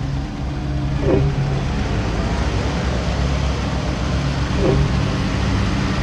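Car engine running low and steady as the car rolls slowly, with two brief squeaks, one about a second in and one near five seconds.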